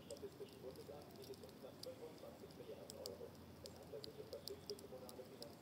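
Wood burning in a garden campfire, crackling quietly with scattered sharp snaps and pops at irregular intervals.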